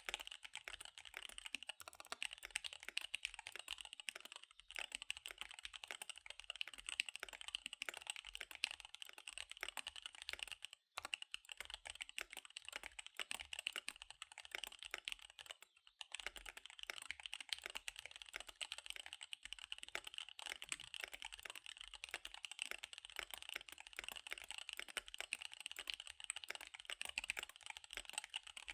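Fast typing on a KBD75 V3 mechanical keyboard with SP-Star Dark Magic Girl tactile switches and DSA keycaps: a dense, unbroken run of key clacks, with brief pauses about 11 and 16 seconds in.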